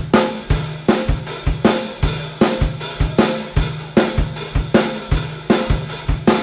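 Live band playing a song with a steady drum-kit beat, about two strong hits a second from the bass drum and snare, with cymbals and a low sustained bass line underneath.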